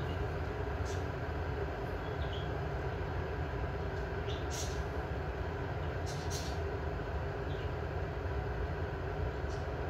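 Glass electric kettle heating water: a steady rumble of water coming up to the boil, with a few short, faint high ticks now and then.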